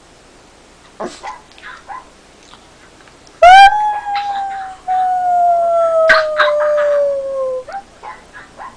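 A dog howling: one long note that starts abruptly about three and a half seconds in and slides slowly down in pitch for about four seconds, after a few short faint sounds.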